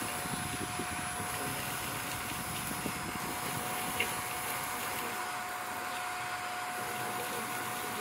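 Shark vacuum cleaner running steadily with a constant whine over a rushing hiss while it sucks up pet bedding. A rough low crackle of bedding going through fades out about five seconds in.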